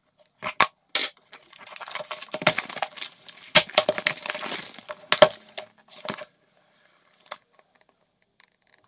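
Clear cellophane shrink-wrap on a small cardboard product box being cut and peeled off by hand, crackling and crinkling with several sharp cracks. It stops about six seconds in.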